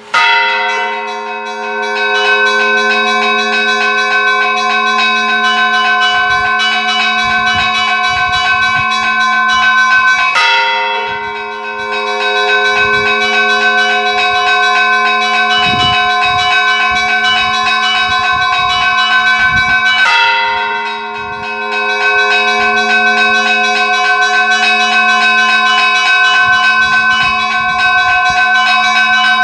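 Church bells ringing, many tones sounding together and ringing on, struck afresh with a new burst at the start, about ten seconds in and about twenty seconds in. A steady low hum lies beneath the bells throughout.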